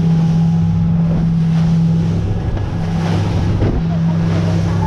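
Motorboat engine running steadily at cruising speed, with wind buffeting the microphone and the hull splashing through choppy water.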